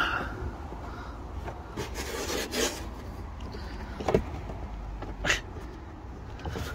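A car's plastic inner wheel-arch liner being pulled back and flexed by hand, with a few scrapes and short clicks over a low steady rumble.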